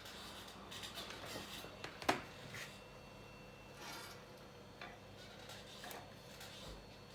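Small hand tools scraping and clicking against an iPhone 8 Plus housing during rear glass removal, in short irregular strokes with one sharp click about two seconds in.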